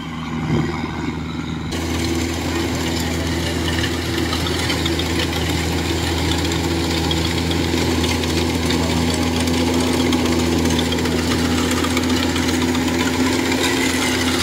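Kubota DC-105X rice combine harvester's diesel engine running steadily with a constant hum, louder and steadier from about two seconds in.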